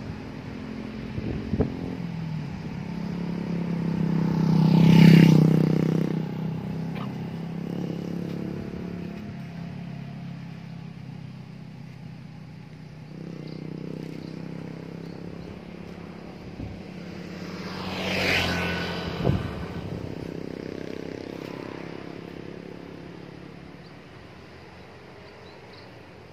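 Motor vehicles passing on a road one at a time. The first and loudest passes close about five seconds in, its engine drone swelling and then dying away. A second passes about eighteen seconds in, and the sound fades out toward the end.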